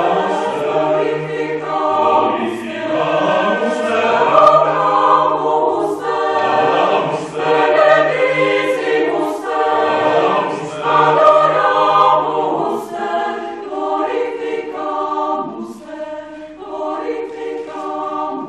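Mixed choir of women and men singing in harmony, holding sustained chords, growing softer in the last few seconds.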